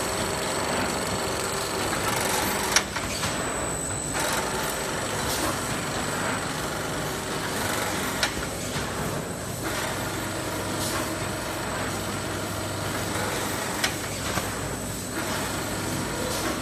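Automatic heavy-bag rice packing machine running: steady mechanical noise of the conveyor and bag-closing sewing head, broken by three sharp clacks spaced a few seconds apart.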